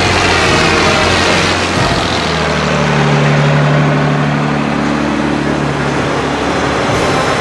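Diesel engines of large farm tractors running as they drive slowly past, starting with a John Deere rubber-tracked tractor. About two seconds in the engine note changes to a steadier, higher hum as the next tractor comes up.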